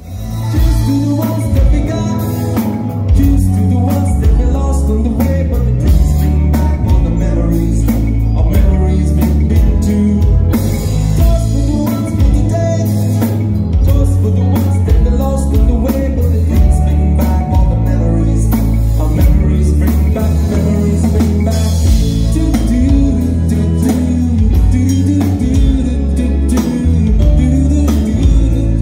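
Live pop band playing: a man singing over electric guitar, drum kit and bass guitar, with keyboard in the band. The music fades in quickly at the very start.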